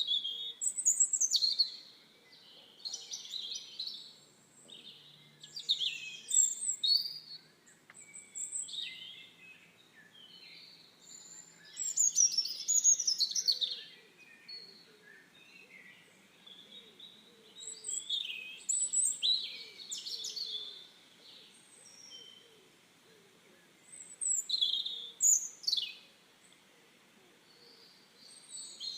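Songbirds singing: short bursts of quick chirping and whistled notes, a second or two each, repeating every few seconds with pauses between.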